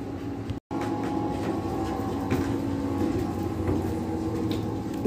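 Steady mechanical hum of a pump running while flood water is pumped out of the basement through hoses, with a few faint ticks; the sound drops out completely for a moment about half a second in.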